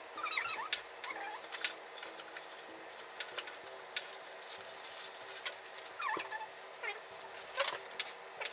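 Knife tapping and clicking on a plastic cutting board as mushrooms are sliced, with irregular taps and rustles from handling packaging and a parchment paper box; a few short high squeaks come through now and then.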